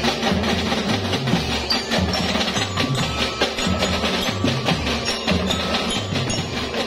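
Children's marching band playing: bell lyras (marching glockenspiels) ring out a tune over marching drums keeping a steady beat.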